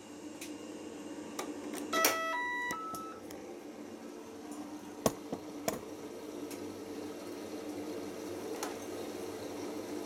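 Siemens iQ washing machine's electronic start chime, a quick run of beeps at different pitches about two seconds in. A couple of sharp mechanical clicks from the machine follow a few seconds later, over a faint steady hum.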